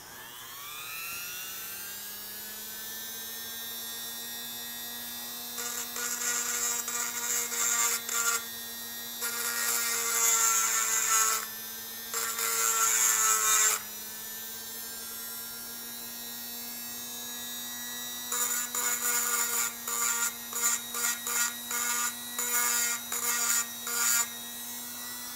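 Dremel rotary tool spinning up to a steady whine, its grinding stone rasping against the port edges of a two-stroke big bore cylinder in several long passes and then many short touches near the end. The sharp port edges are being chamfered round so the piston rings won't catch on them.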